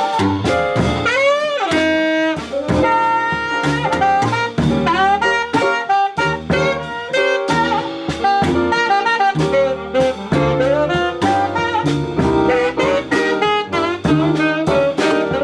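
Jazz music with a saxophone playing the lead line over a drum kit, with bending notes and a steady beat.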